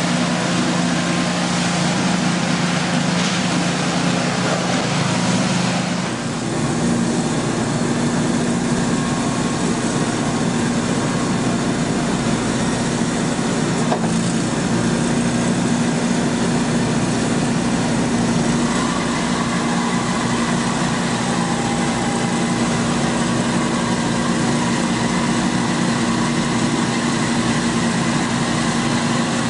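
Engine of a Somero S-840 laser screed running steadily as the machine screeds wet concrete, a constant mechanical hum. The sound shifts abruptly about six seconds in, to a slightly different steady hum.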